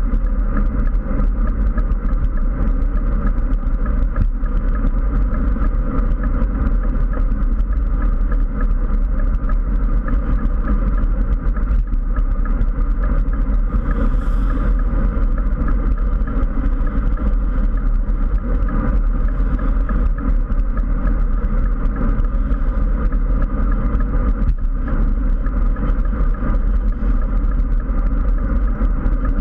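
Steady wind roar buffeting a bike-mounted GoPro camera's microphone as the road bike rides at speed, with a deep rumble underneath.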